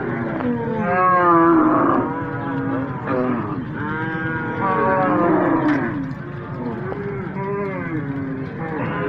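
A herd of White Fulani cattle mooing, many calls overlapping one after another, some sliding up and down in pitch.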